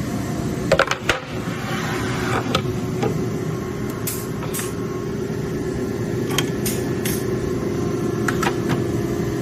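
Egurko Dart 800 CNC machining centre running under power: a steady machine hum with a held tone, broken by scattered sharp clicks and clacks of its moving parts.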